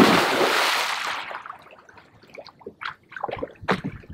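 A person's big splash into a lake, the churning water loud at first and dying away over about a second and a half, followed by a few short, smaller splashes near the end as he comes up and moves in the water.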